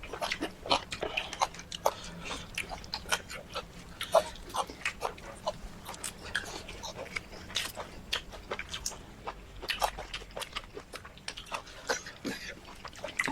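Mouth sounds of eating: chewing with wet lip smacks and clicks, a few every second, irregular.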